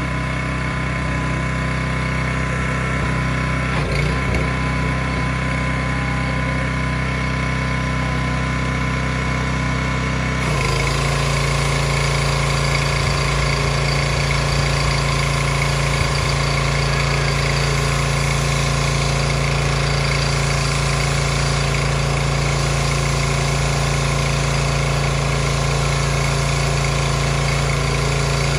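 Craftsman pressure washer's small engine running steadily. About ten seconds in, the trigger is pulled: the engine note shifts under load and the loud hiss of the high-pressure water jet spraying on concrete joins it and carries on.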